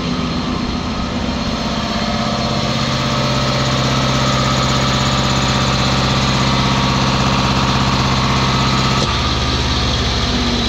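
An engine running steadily while calcium chloride ballast is pumped into a tire. About nine seconds in, a deep steady hum cuts off and the sound drops a little.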